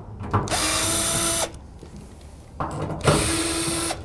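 Cordless drill-driver with a T30 Torx bit running twice, about a second each, backing out the side-panel fasteners of a steel equipment cabinet.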